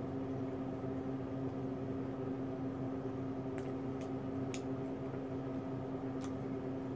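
Steady mechanical hum of a running fan or appliance, with a few faint clicks about halfway through and near the end.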